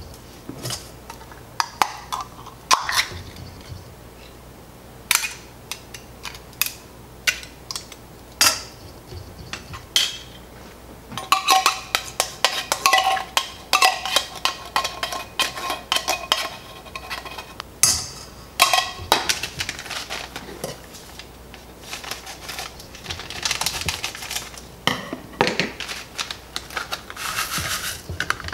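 A metal utensil clinking and scraping against a tin can and a stainless steel mixing bowl as condensed soup is scooped out, with scattered sharp knocks. Near the end there is a scratchy rustling.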